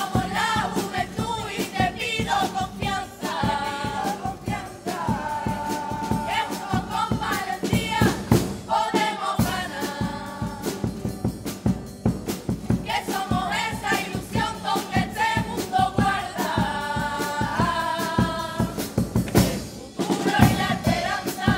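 Youth carnival comparsa chorus singing in harmony, accompanied by Spanish guitars with a steady beat.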